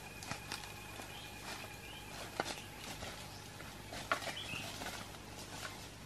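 Footsteps crunching and rustling through leaf litter and undergrowth, with irregular sharp snaps and cracks, as a person walks off through the forest. A bird gives several short upward chirps in the background, and a thin steady high tone fades out about two seconds in.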